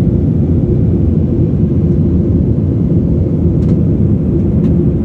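Airliner noise: a loud, steady low rumble that does not change.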